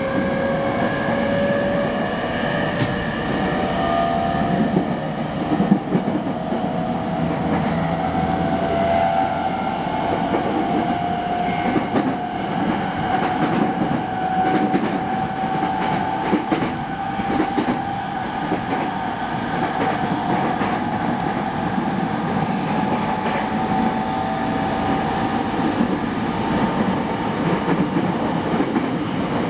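Interior running sound of a renewed JR East E217 series electric train, recorded in a motor car: the traction motor whine rises slowly in pitch as the train accelerates, then holds level as it runs at speed, over the steady rumble of wheels on the rails.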